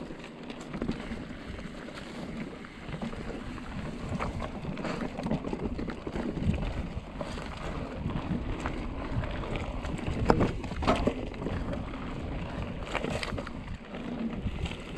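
Trek Remedy full-suspension mountain bike riding down a dirt trail: tyres rolling over rough ground with frequent rattles and knocks as the bike hits bumps, loudest about ten seconds in, and wind buffeting the microphone.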